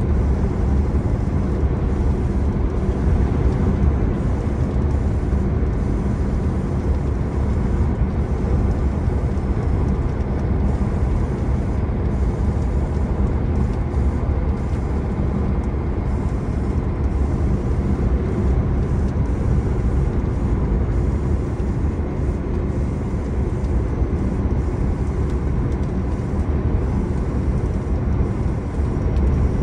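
Steady low rumble of a Mercedes truck's engine and road noise, heard inside the cab while driving, with no change in pitch or level.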